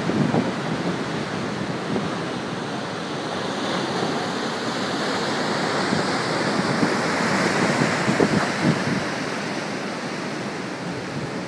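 Ocean surf from hurricane swell rushing and breaking steadily, with wind buffeting the microphone in a few short low gusts.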